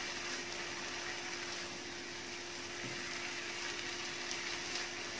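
Onion-tomato masala frying in oil in a nonstick pot while it is stirred with a silicone spatula: a steady sizzle.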